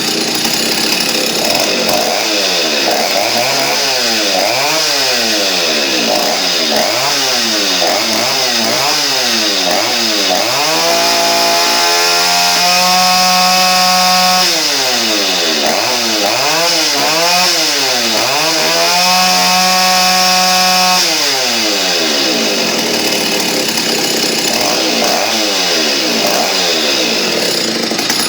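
Stihl 08S two-stroke chainsaw with a 49 mm piston, revved with no load: the throttle is blipped over and over, so the engine note rises and falls repeatedly. Twice it is held at high revs for about two seconds before dropping back.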